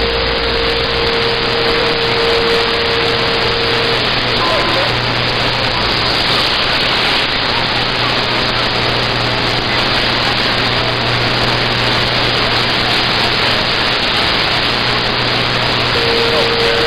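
CB radio receiver static: a steady loud hiss of open-squelch band noise, with a steady whistle tone through the first four seconds that comes back near the end.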